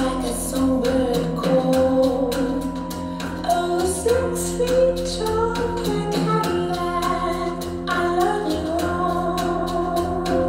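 A song with a singing voice over sustained instrumental tones, played through full-range open-baffle speakers driven by a 6BM8 pure class A tube amplifier.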